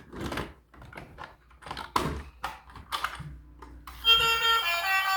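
Irregular clattering and rustling, a few short noises a second. About four seconds in, a tune of held notes begins and becomes the loudest sound.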